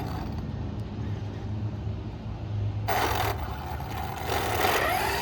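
Arrma Limitless RC car driving on wet pavement, its brushless electric motor whining and rising in pitch near the end. Two bursts of hissing tyre spray come about three and four and a half seconds in, over a steady low rumble.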